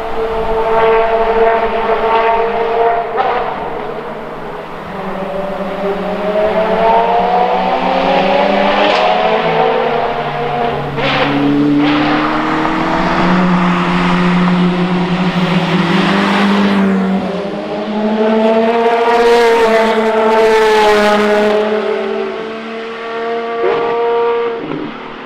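Ferrari FXX K race cars' naturally aspirated V12 engines passing at high revs, the pitch rising and falling as they accelerate and change gear, with more than one engine heard at once at times. A few short sharp cracks come in the middle, and it fades near the end.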